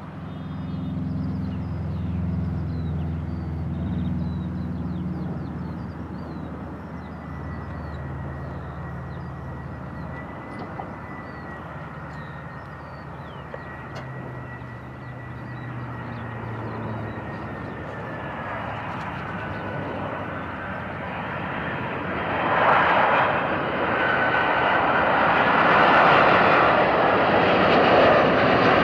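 Cathay Pacific Airbus A340-300 on approach to land with gear down. Its four CFM56 turbofans give a steady whine that swells into a much louder jet roar about two-thirds of the way through as it comes near.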